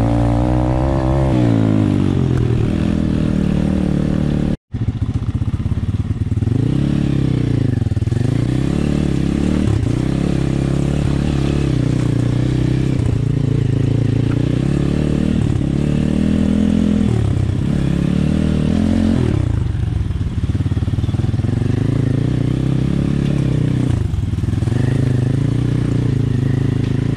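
Honda XR dirt bike's single-cylinder four-stroke engine under riding load, its revs rising and falling again and again with the throttle. The sound drops out for an instant about four and a half seconds in.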